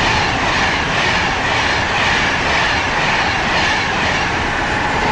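Class 390 Pendolino electric train passing on the line: a loud, steady rush of wheel and air noise with a faint high whine.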